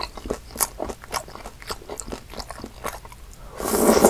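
Close-miked chewing of deep-fried Korean snack food, a run of many short crisp crunches and crackles, with one louder, longer rush of noise near the end.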